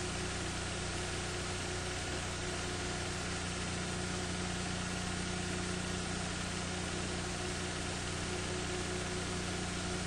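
Steady electrical hum and hiss with no program sound: the empty soundtrack of footage that has no audio.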